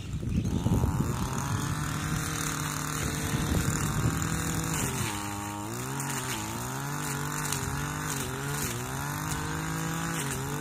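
Shindaiwa T236TS brushcutter's small two-stroke engine revving up to high speed and running hard. Its pitch sags about halfway through and briefly again later, as the steel weed blade bites into the weeds.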